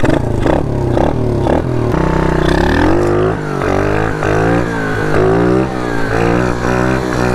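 125cc mini dirt bike's single-cylinder engine running and being revved, its pitch rising and falling again and again as the throttle is blipped.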